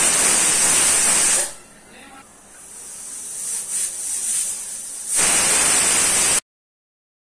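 Pressure cooker whistling twice: two loud jets of steam hiss, the first lasting about a second and a half at the start and the second about five seconds in, with a softer hiss building up between them. Each whistle is the weighted valve lifting to vent built-up pressure. The sound then cuts off abruptly into silence.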